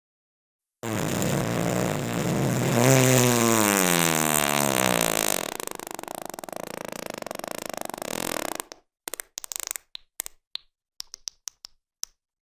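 A long fart sound effect: after about a second of silence, a drawn-out fart whose pitch falls steadily in the middle and then fades lower. Near the end it breaks into a string of about a dozen short pops.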